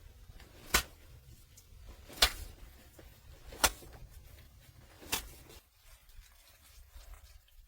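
Four sharp knocks, evenly spaced about a second and a half apart, over a low rumble that stops shortly after the last knock.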